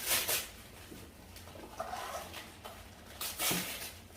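Packaging rustling in short bursts as a gift is being opened, once near the start and again about three seconds in.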